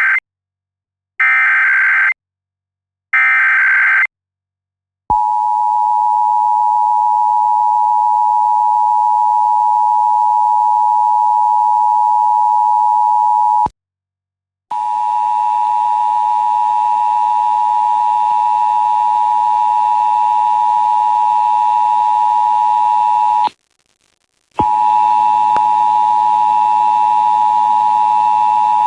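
Emergency Alert System test signal: the end of one SAME header data burst and two more, each about a second long, then the EAS two-tone attention signal, a steady dual tone near 900 Hz, starting about five seconds in. The attention tone cuts out for about a second twice, about halfway through and again near the end, and comes back with faint extra hum and tones beneath it.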